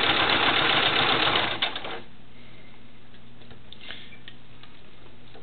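Sewing machine running, stitching the invisible zipper under a zipper foot, then stopping suddenly about two seconds in; a faint steady hum and a few light clicks follow.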